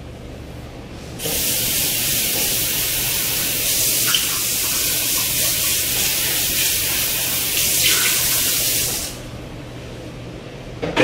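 Kitchen sink faucet running, water spraying steadily into the sink. It is turned on about a second in and shut off about eight seconds later.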